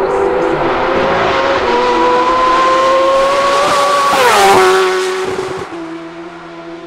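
Kawasaki H2R's supercharged inline-four at full throttle, its pitch climbing steadily as it accelerates toward the listener. It passes about four seconds in with a sharp drop in pitch, then fades away down the road.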